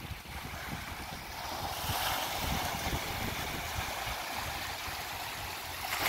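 Small sea waves washing in over dark shoreline rocks, the hiss of foaming surf swelling about two seconds in and holding, with a low wind rumble on the microphone underneath.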